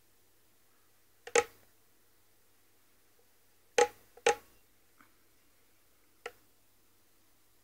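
A few sharp taps against near silence: one about a second in, two close together in the middle, and a lighter one near the end.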